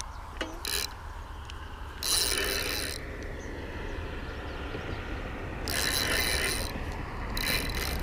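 Fishing reel's drag clicking in three bursts of about a second as a hooked carp pulls line off the spool.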